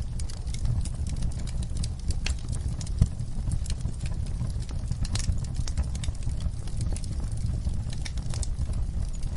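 Wood fire burning in a fireplace, crackling with irregular sharp pops over a low, steady rumble; one louder pop about three seconds in.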